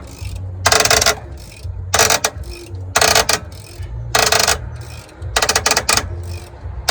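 Steer-axle brake slack adjuster being backed off with a wrench: short bursts of metallic ratcheting clicks about once a second as the brake shoes retract. The clicking is the sound of a slack adjuster in good shape.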